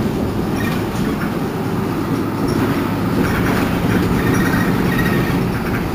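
Inside a Mercedes-Benz Citaro C2 city bus on the move: a steady low drone of engine and drivetrain with road noise and light rattles of the body, growing slightly louder about halfway through.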